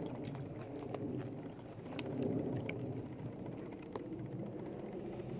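Low, steady outdoor background rumble with a few faint clicks and taps, including a sharp knock at the very start.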